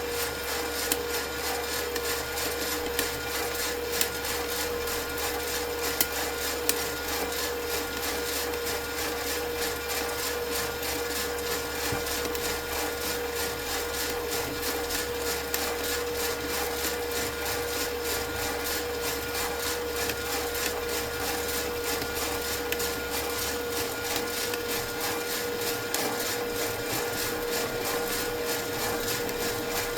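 Skywalker coffee roaster running with a steady motor-and-fan hum and a constant whine, while the beans inside pop with sharp, scattered cracks of first crack. The loudest cracks come in the first seven seconds or so.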